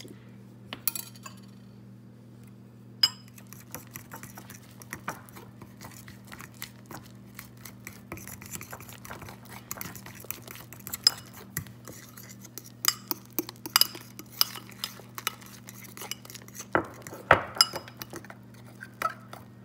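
Metal fork stirring thick batter in a ceramic bowl, its tines clinking and scraping against the bowl in quick, irregular taps. A steady low hum runs underneath.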